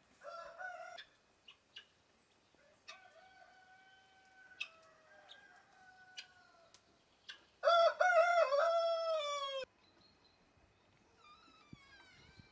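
Rooster crowing three times: a short call at the start, a long fainter crow from about three seconds in, and the loudest crow, about two seconds long, near the middle, which ends abruptly. Faint high chirps near the end.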